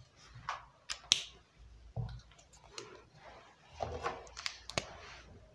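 Faint scattered clicks, taps and short scratches of a whiteboard marker on a whiteboard, with a marker being handled at the board's tray, the sharpest clicks about a second in and near the end.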